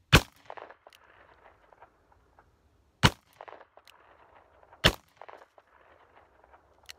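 Three shots from a Taurus Tracker .44 Magnum revolver, the first right away, the next two about three and five seconds in, each followed by a trailing echo. A much fainter sharp click comes near the end.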